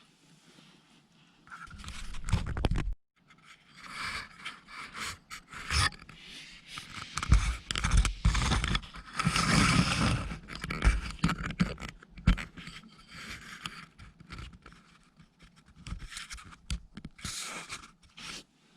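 Irregular scraping and rubbing in uneven bouts, with a short burst of low rumbling thuds about two seconds in and the busiest, loudest scraping around the middle.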